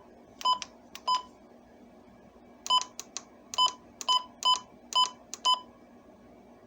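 Eight short, sharp electronic beeps at uneven intervals, with a gap of about a second and a half after the second one. These are key beeps from an electronic device, most likely the radio receiver being operated.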